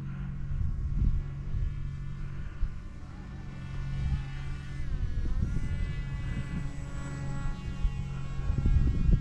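Small electric RC foam plane's motor and propeller whining overhead, growing louder a few seconds in, its pitch dipping and recovering about halfway through. Low gusts of wind buffet the microphone.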